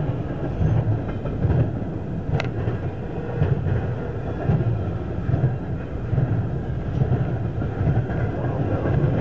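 Double-stack intermodal freight cars rolling past: a steady rumble of steel wheels on rail with a rhythmic low clatter about once a second. There is a brief high metallic ring about two and a half seconds in.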